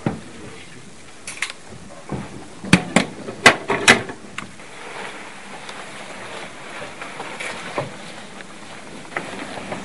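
Gear being handled on a table: a cluster of sharp clicks and knocks about three seconds in, with a few fainter taps, over a steady hiss.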